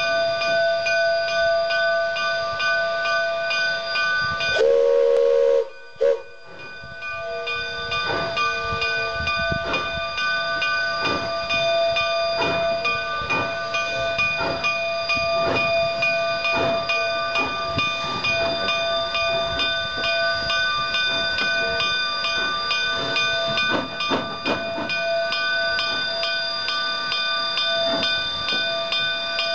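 Steam locomotive 484, a K-36 2-8-2, sounding its steam whistle twice, the first blast about a second long and the second a brief toot, then chuffing slowly and unevenly as it moves, over steady steam hissing and a constant whine.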